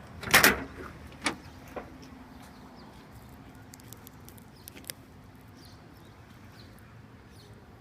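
A sharp clatter about half a second in, then a few faint clicks and knocks over a low steady background hum.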